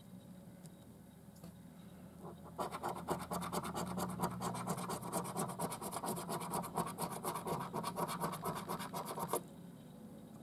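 A coin scratching the scratch-off coating from a lottery scratch card in rapid back-and-forth strokes, starting about two and a half seconds in and stopping shortly before the end.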